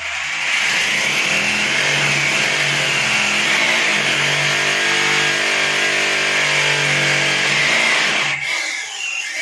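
Corded electric drill with a 6 mm bit boring a hole into a bathroom wall, motor running steadily under load, then stopping about eight and a half seconds in.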